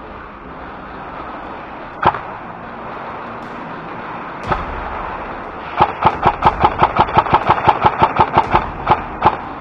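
M4-style airsoft rifle firing: two single shots, then a fast string of about twenty shots, roughly six a second, lasting about three and a half seconds.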